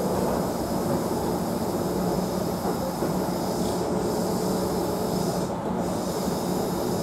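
Kintetsu local electric train running, heard from inside the passenger car: a steady rumble of the wheels on the rails with a low, even hum underneath.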